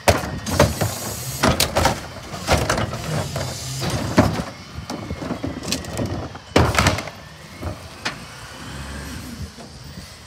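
McNeilus rear-load garbage truck running while carts are tipped into its hopper by hand: repeated loud bangs and clatter as the plastic carts knock against the hopper and trash drops in, over the steady hum of the truck's engine.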